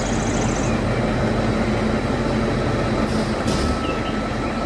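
Concrete mixer truck's diesel engine running steadily, with a low, even noise that does not rise or fall.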